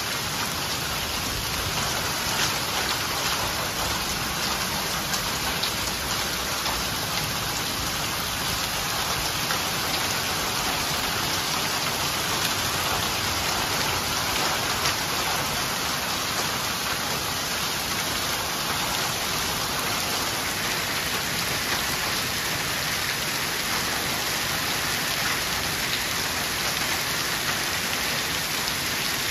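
Torrential cloudburst rain pouring onto a flooded paved lot: a dense, steady hiss of drops splashing into standing water, unbroken throughout.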